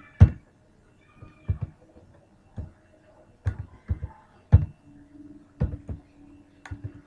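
Computer keyboard keys struck one at a time, slowly and unevenly: about a dozen separate dull clicks. A faint steady hum comes in about five seconds in.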